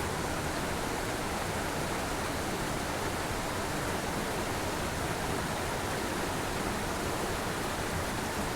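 Small mountain creek rushing over boulders: a steady, unbroken rush of water.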